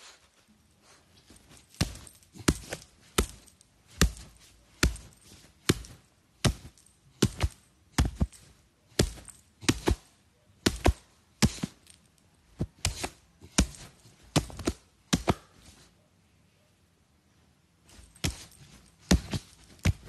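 A run of sharp thumps close to the phone, about two a second and unevenly spaced, as a beagle moves about right beside it. They stop for a couple of seconds and start again briefly near the end.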